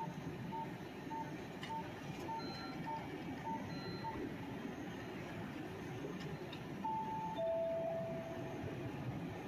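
Railway platform ambience with electronic signal tones: a short beep repeats about every 0.6 s and stops about 4 s in. Near the end comes a two-note descending chime, the second note held about a second and a half.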